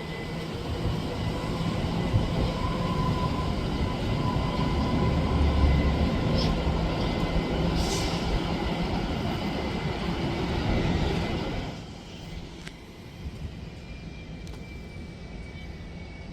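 Jet airliner engines at takeoff power: a loud, steady rushing noise with a faint whine. It drops off suddenly about twelve seconds in, leaving a softer hum.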